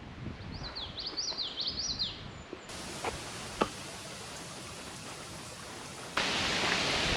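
A small bird sings a quick run of zigzagging high notes for about two seconds over low wind rumble. Then a steady outdoor hiss with a couple of sharp clicks, which turns abruptly louder about six seconds in.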